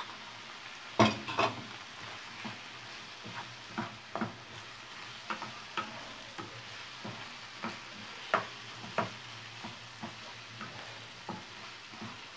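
Wooden spoon stirring a chicken filling in a nonstick frying pan: a steady sizzle of frying under irregular knocks and scrapes of the spoon, the loudest knocks about a second in.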